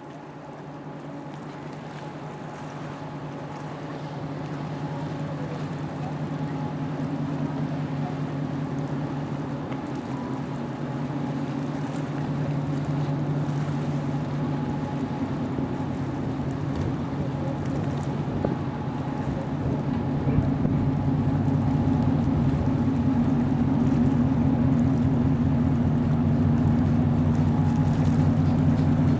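Engines of a Scandlines passenger and car ferry droning as the ship passes close by, a steady low hum that grows gradually louder as it draws near.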